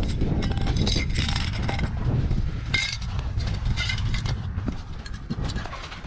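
Metal aerosol spray-paint cans clinking and knocking against each other as they are packed into a fabric backpack, with rustling and scraping of the bag and its zip.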